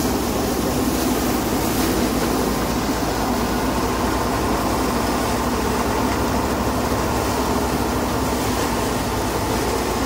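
Paddy thresher running steadily, a loud even machine drone with a fast low throb, as bundles of harvested rice are fed into it and threshed.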